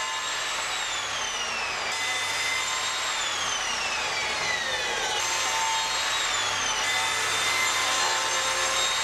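Table saw running and ripping wooden boards to width. Its whine falls in pitch several times as the blade takes the wood.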